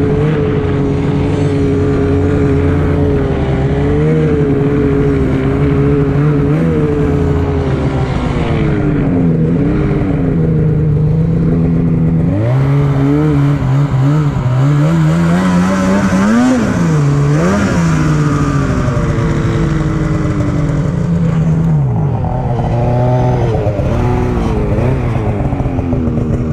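Snowmobile engine running under a rider, held steady at first, then revving up and down repeatedly, with its highest revs about two-thirds of the way in.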